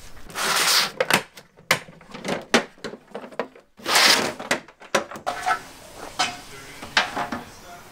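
Clattering knocks of boards and a metal saw track being handled on a wooden workbench, with two short scraping slides, one near the start and one about four seconds in.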